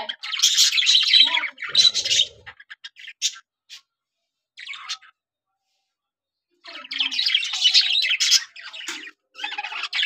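A flock of budgerigars chattering and chirping in bursts: dense warbling chatter for the first two seconds or so, then scattered single chirps, a short pause around the middle, and dense chatter again for the last few seconds.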